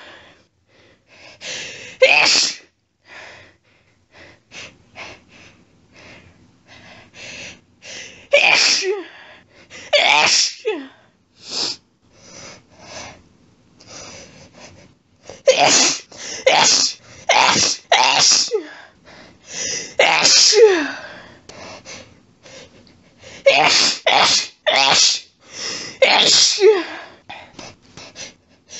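A woman's wet, intense allergic sneezing fit, with hitching breaths between the sneezes. Single sneezes come first, then rapid sets of several sneezes in quick succession in the middle and again near the end.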